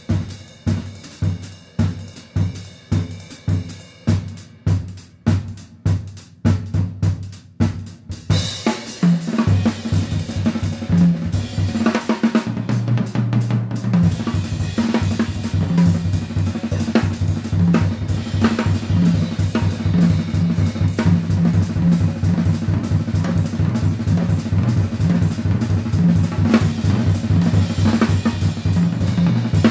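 Jazz quartet playing an up-tempo swing tune, with the drum kit (snare, bass drum, hi-hat and cymbals) prominent over grand piano and double bass. About eight seconds in, a run of evenly spaced accented hits gives way to a denser swinging groove with a moving bass line.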